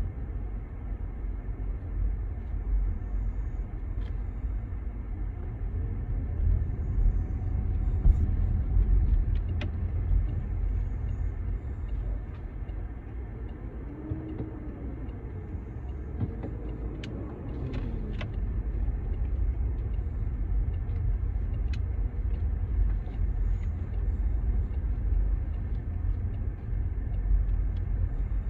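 Steady low road and engine rumble of a moving car heard from inside the cabin, with a few faint scattered clicks.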